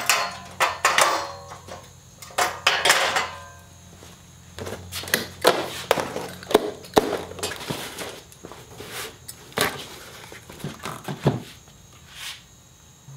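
A cardboard box being opened and handled on a steel table, with a string of irregular knocks, thuds and clatters as the slatted steel plasma-cutting table top is lifted out.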